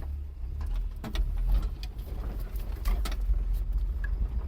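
Nissan Sunny car running, a steady low rumble with a few light knocks.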